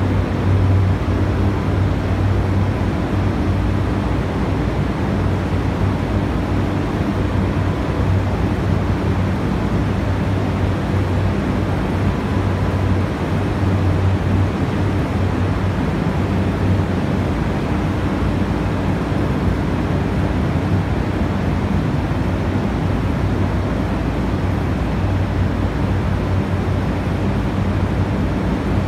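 Steady, loud drone of hydroelectric powerhouse machinery: a low, even hum under a wide noise, with no changes.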